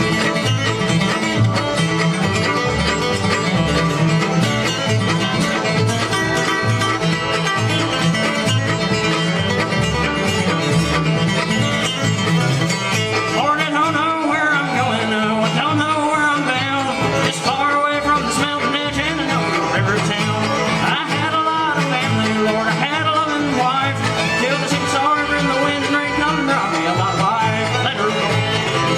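A bluegrass band playing live, with banjo and guitar driving a steady beat and a wavering melody line coming in about halfway through.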